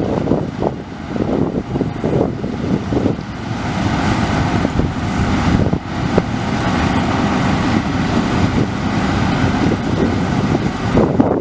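Deutz-Fahr 4068 HTS combine harvester running steadily while harvesting, with wind buffeting the microphone, gustier in the first few seconds.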